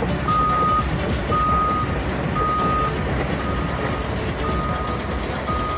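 Heavy machine's backup/travel alarm beeping steadily, about once a second with half-second beeps, over the low running of a diesel engine. The beeps grow a little fainter in the second half.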